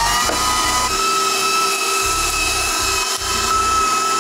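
KitchenAid stand mixer motor driving a meat grinder attachment as it grinds cold diced pork shoulder and bacon: a steady high motor whine over a grinding noise.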